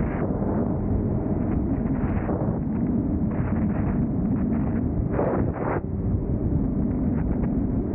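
Heavy wind buffeting on the microphone of a motorcycle at steady highway speed. The Suzuki GSX-R 600's inline-four engine runs at an even speed underneath.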